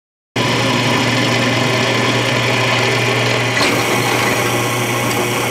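Drill press running, its twist bit boring through a steel plate: a steady motor hum under the hiss of the cut. It starts abruptly about a third of a second in.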